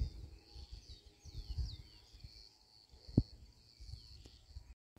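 Steady high insect trilling with a few short falling bird chirps, over low, irregular rustling and bumping of someone moving through brush; one sharp click about three seconds in.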